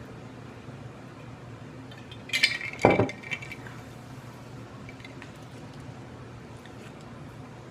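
A glassy clink, then a heavier knock about two and a half to three seconds in, like a glass or dish being handled and set down on a table. A low, steady background sound from a television runs underneath.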